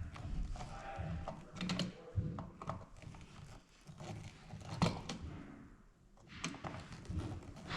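Small irregular clicks and taps of a screwdriver working the screws of a wall light switch, with one sharper click about five seconds in.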